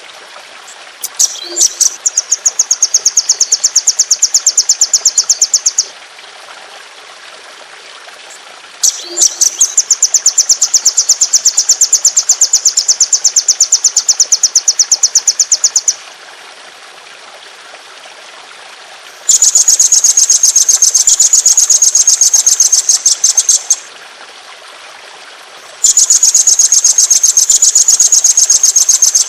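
A songbird's long, very fast rolling trill of sharp, high-pitched notes (the 'ngeroll'), sung four times in runs of about four to seven seconds with pauses of a few seconds between. Each run opens with a few separate notes, and the last two fall slightly in pitch.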